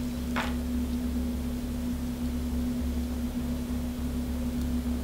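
A steady low hum with one constant tone, with a brief faint sound about half a second in.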